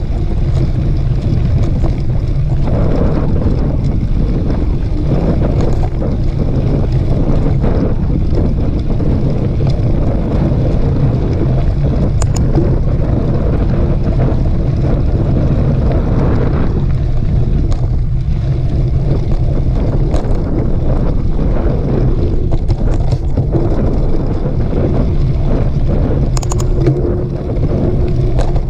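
Wind buffeting a camera microphone in a steady low rumble while a mountain bike rolls over a dirt trail, with scattered clicks and rattles from the bike.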